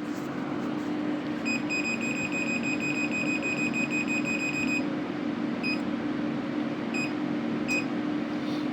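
Electronic beeper on a repaired Siemens board under test: a high, rapidly pulsing tone for about three seconds, then three short separate beeps, over a steady low electrical hum.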